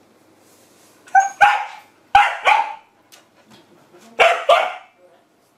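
Shiba Inu barking: six sharp barks in three quick pairs, each pair a double bark.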